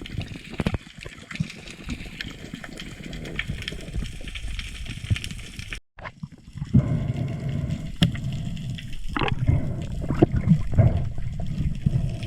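Water sloshing and gurgling around a camera in the sea, with scattered clicks and knocks. It cuts out for a moment about six seconds in, then returns louder and heavier.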